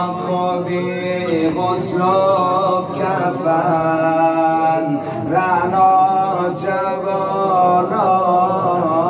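A man chanting a noha, a Shia mourning lament, in long drawn-out notes that waver and glide, over a steady low hum.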